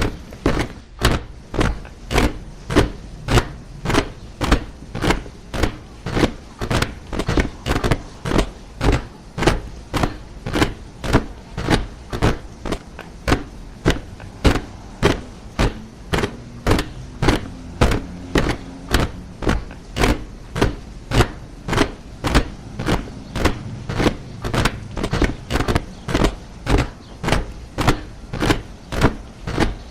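Soldiers marching in step, their boots striking the ground together in a steady rhythm of about two steps a second.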